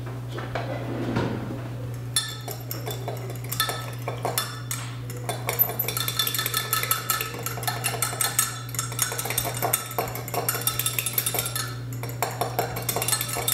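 A utensil stirring salad dressing in a glass measuring cup: quick, continuous clinking of the utensil against the glass from about two seconds in, over a steady low hum.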